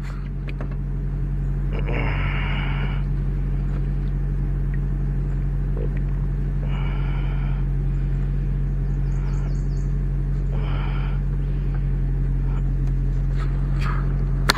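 Vehicle engine idling steadily, a low even hum. Three short calls from an animal, about a second each, sound over it a few seconds apart.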